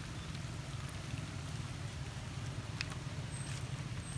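Light rain: scattered drips and patter on wet stone and leaves over a steady low rumble.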